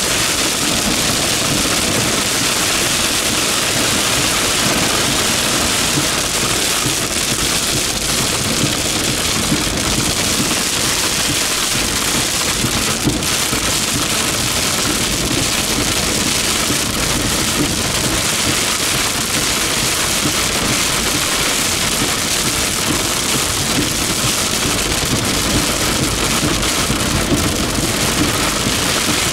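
Heavy thunderstorm rain falling steadily, a dense unbroken hiss of drops hitting the ground and surfaces.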